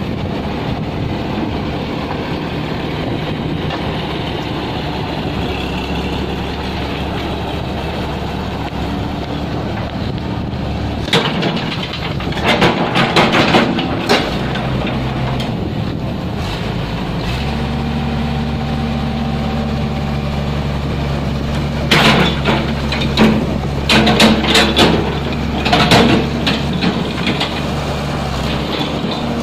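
Excavator diesel engine running steadily, its note changing about halfway through, with two spells of loud clanking knocks over it.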